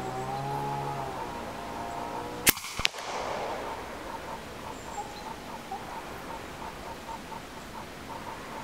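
EDgun Leshiy 2 PCP air rifle firing a pellet: a sharp crack about two and a half seconds in, followed a moment later by a fainter crack. A second shot comes near the end.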